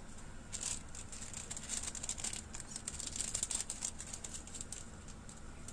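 Plastic packet crinkling and rustling as it is handled, a dense crackly rustle from about half a second in until about four seconds in.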